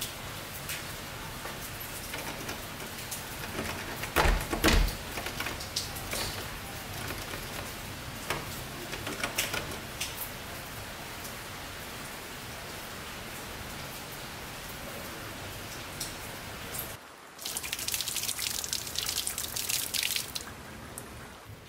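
Light steady patter with scattered drips and clicks, and a few heavier knocks about four to five seconds in. Near the end a wall-mounted water tap runs hard for about three seconds, then stops.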